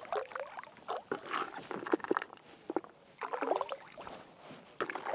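Bait mix, mostly boilies with some seeds and corn, scooped and thrown from a boat, scattering and splashing onto the water in several rushes.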